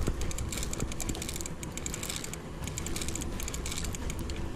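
Shimano TLD 25 lever-drag reel being cranked in, a rapid run of mechanical ratchet-like clicks from the reel that thins out after about two seconds.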